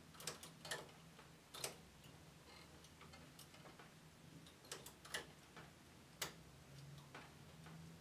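Faint, irregular clicks of the metal needles of a knitting machine being pushed by hand along the needle bed and touched with a hand tool, as needles are set for partial knitting. A faint steady hum runs underneath.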